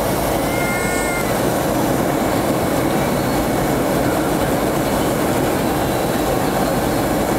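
Steady rushing cabin noise of an airliner in flight on its descent, engine and airflow noise heard from a window seat.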